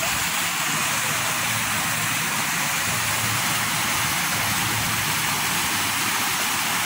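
Many water jets of the Latona Fountain at Versailles splashing and falling into its basin: a steady, even rush of spray.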